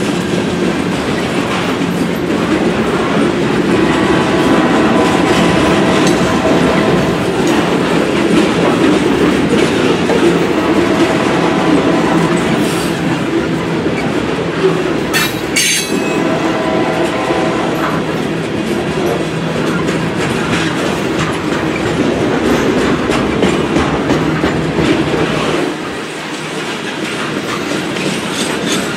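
Freight train of open-top phosphate hopper cars rolling past: a steady rumble of steel wheels on rail with clicking over the rail joints. A few brief wheel squeals, and a run of sharp clicks about halfway through.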